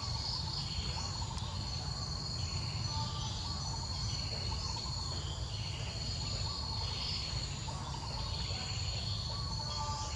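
Insects droning steadily in a high-pitched tone, with soft swells rising and falling about every second and a half and a few faint chirps, over a low rumble.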